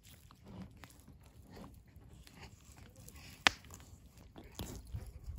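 Fillet knife cutting into a whitefish behind the head, with soft crunching and crackling as the blade works through scales and bone. There is one sharp click about three and a half seconds in.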